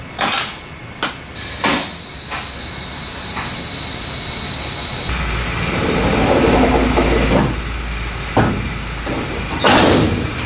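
A steady hiss of air for a few seconds, then a low hum. Near the end comes a clank and then a loud slam as the 1954 Ford F100's steel hood is shut.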